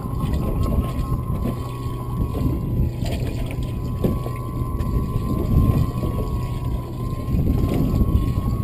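Wind buffeting the microphone and water sloshing against a small boat's hull, with a thin steady high whine throughout and a few light knocks as a plastic cooler lid is opened.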